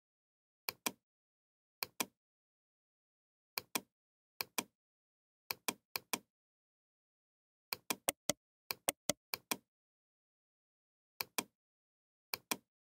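Computer mouse clicks: short sharp clicks, mostly in quick pairs, with a faster run of several clicks about two-thirds of the way through and dead silence between them.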